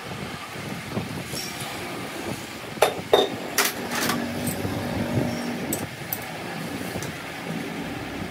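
Metal-on-metal clinks and knocks from hand tools and a chuck key on a lathe, a short cluster of sharp strikes about three to four seconds in, over a steady workshop background noise.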